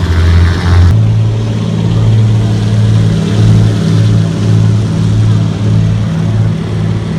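Propeller engines of a seaplane droning steadily. The pitch jumps abruptly about a second in, then a throbbing beat of about two pulses a second sets in.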